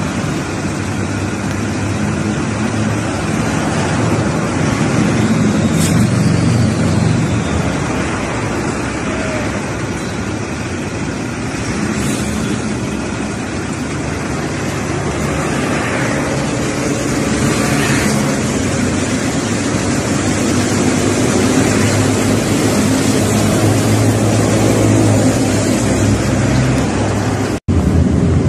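Steady outdoor rumble of city traffic and Metro rail noise, with a few passing swells, cutting out briefly near the end.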